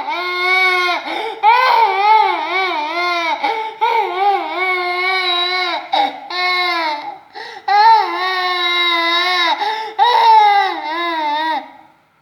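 A young child crying in long, loud, wavering wails, one after another with short breaks for breath, trailing off near the end.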